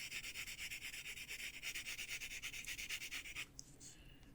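Prismacolor colored pencil (Canary Yellow) scratching across a coloring-book page in quick, even back-and-forth shading strokes, stopping about three and a half seconds in.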